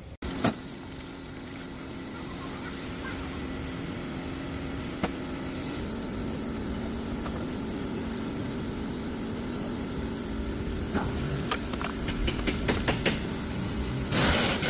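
Car engine idling steadily, with a few light clicks and knocks in the last few seconds.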